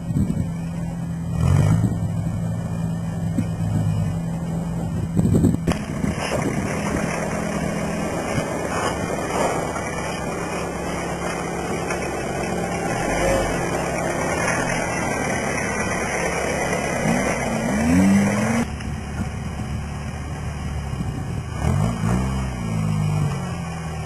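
Off-road truck engine running and revving under load, with the pitch rising and falling a few times in the later part. The sound changes abruptly twice, as between separate shots. The truck is a modified Toyota LJ70 Land Cruiser.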